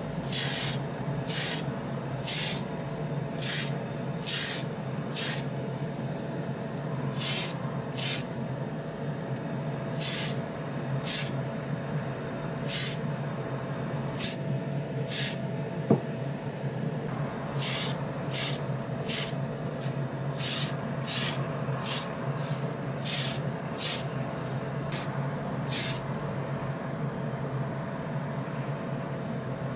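Degreaser spray hissing in short bursts onto a die-cast toy truck body, some twenty bursts at uneven intervals, over a steady low hum.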